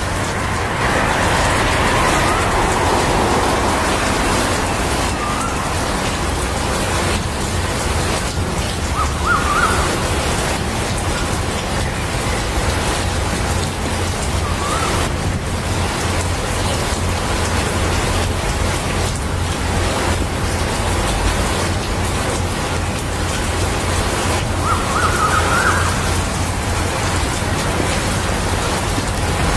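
Steady rain falling on leafy shrubs, an even hiss with a low rumble beneath it. A few brief high chirps come through now and then.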